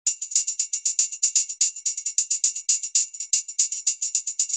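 Tambourine played in a fast, even rhythm, about nine jingle strikes a second with regularly recurring louder accents, starting suddenly.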